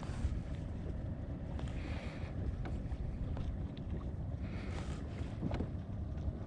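Wind rumbling on the microphone, with a faint swishing hiss twice, about two seconds in and again near five seconds.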